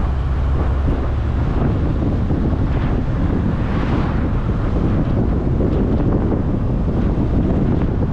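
Wind rumbling on the microphone of a moving car, with steady road noise; a hiss swells briefly about four seconds in.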